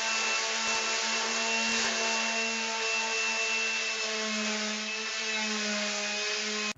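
Handheld electric sanding tool running steadily against a car fender, stripping the paint toward bare metal: a constant motor hum under a grinding hiss.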